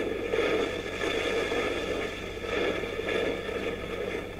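Rough, steady scraping and rushing noise of a jet airliner skidding on its belly through sand, easing off slightly near the end.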